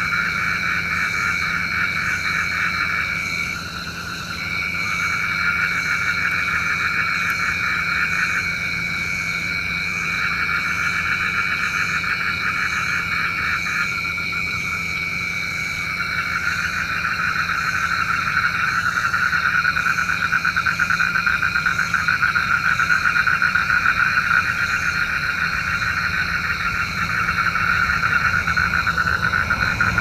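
Frogs calling in long, rapid pulsing trills that last several seconds each, broken by short pauses, over a steady high-pitched drone.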